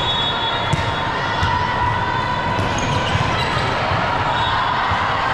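Indoor volleyball play: volleyballs thudding off hands and the hard court amid a steady crowd murmur, with a few short high squeaks.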